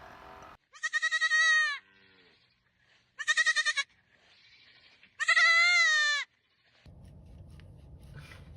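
Three loud, quavering bleats from a farm animal, each under a second long, with short pauses between them.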